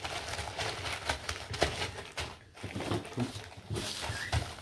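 Small gravel pebbles clicking and crunching together as hands press and spread them level in a shallow wooden tray, in irregular bursts of small knocks.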